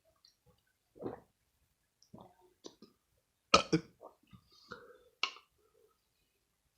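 A person burping after drinking milk: a short burp about a second in and a louder, rougher burp about halfway through, with a few small clicks in between and a sharp one soon after.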